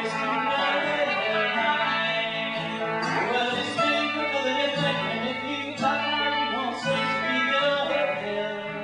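Live folk song: acoustic guitar playing with singing.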